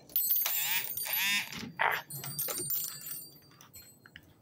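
A dog vocalizing: two drawn-out, wavering whines in the first second and a half, followed by a few shorter, quieter noises.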